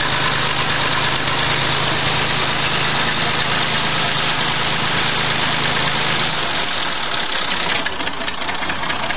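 Diesel tractor engine running steadily on an 80% jatropha biodiesel blend. Its low engine note fades about six and a half seconds in, and the sound changes abruptly near the end.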